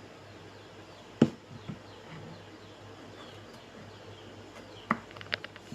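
Sharp knocks: one loud knock about a second in, a lighter one shortly after, and a quick run of clicks near the end, over a low steady hum.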